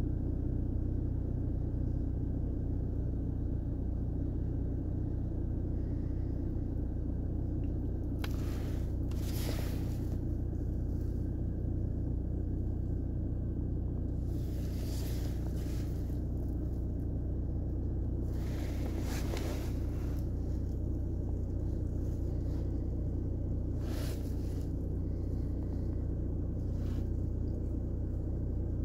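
Steady low vehicle rumble with a constant hum, broken four or five times by a brief rushing whoosh.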